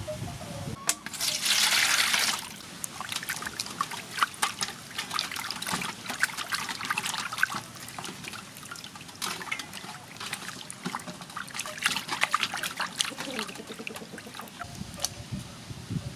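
Hands washing raw cow heart in a metal basin of water: splashing and dripping, with a louder rush of water about a second in.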